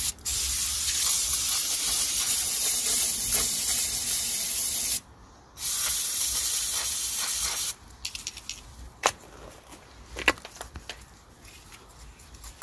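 Aerosol can of EGR valve cleaner spraying into a diesel EGR cooler in two long hisses, with a half-second break about five seconds in. After the spraying stops, a few light clicks and knocks.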